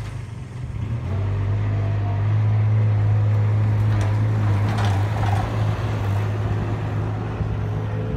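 Avant compact loader's engine starting up and running at a steady pitch, throttling up after about a second as the loader drives off.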